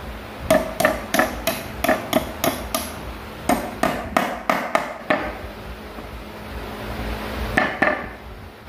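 Steel claw hammer driving a nail into a hardwood table top: a quick run of about eight ringing metal-on-metal strikes, a short pause, about seven more, then two final taps near the end.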